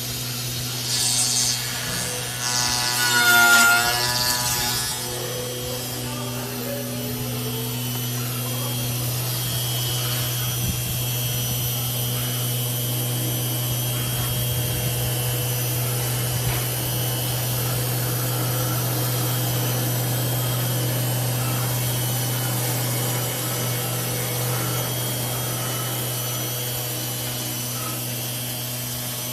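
4-axis CNC router carving a foam block into a car model: the machine hums steadily while the spindle's bit cuts the foam with a rushing noise. A louder passage with a wavering pitch comes in the first few seconds.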